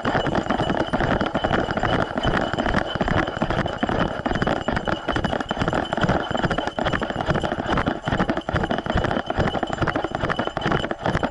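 Action camera strapped to a running dog's back, jostling in its mount: a dense, continuous clatter of rapid irregular knocks from the bouncing camera and the dog's strides, with a faint steady high whine underneath.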